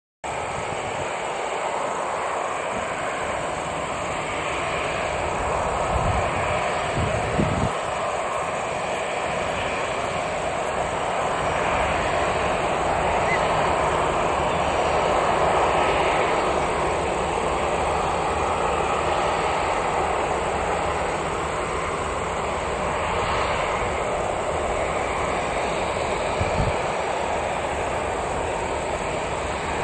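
ATR 72-600 turboprop airliner on its landing approach: the steady drone of its two turboprop engines and propellers, swelling a little about halfway through. A few brief low thumps come about six to seven seconds in and again near the end.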